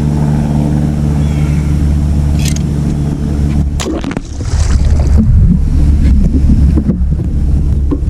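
A boat motor runs steadily for about four seconds. A few sharp knocks follow, then a louder, rougher low rumble of wind and water with no steady note.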